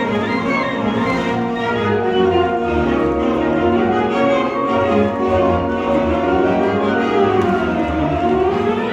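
Marching band playing a slow passage of sustained, held chords.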